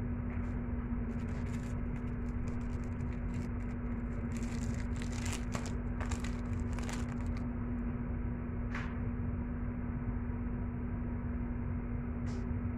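Soft crackling and scraping as keema filling is pressed by hand into a hollowed green capsicum (bell pepper), clustered in the middle with two single clicks later, over a steady low hum.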